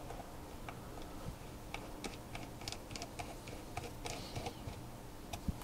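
Faint, irregular small clicks of a precision screwdriver turning a small screw through a graphics card's circuit board, tightening it into the water block.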